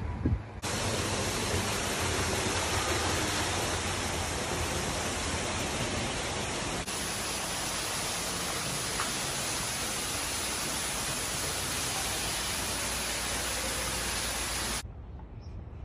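Steady rushing hiss of falling water or spray, as from a greenhouse waterfall or misting system. It starts abruptly, brightens at a cut about seven seconds in, and stops abruptly near the end.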